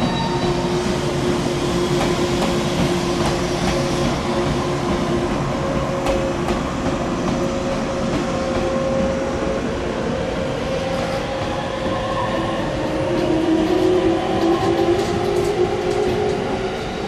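485-series electric train running on the rails: a steady rumble with held humming tones and scattered clicks from the wheels. One hum rises slightly in pitch and grows louder near the end.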